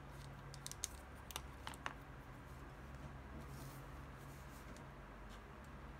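Handling sounds from a pen being uncapped and a glass bottle on a leather mat: a quick run of sharp, light clicks in the first two seconds, then a faint soft rustle, over a low steady hum.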